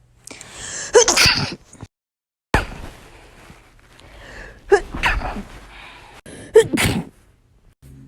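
A person sneezing three times in quick succession, the first after a gasping intake of breath, as separate sneezes cut one after another.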